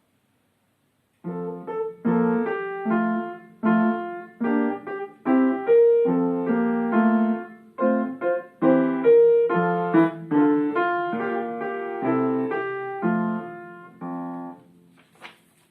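A short piano piece of chords and melody notes, played quietly at a soft (piano) dynamic. It starts about a second in and dies away shortly before the end.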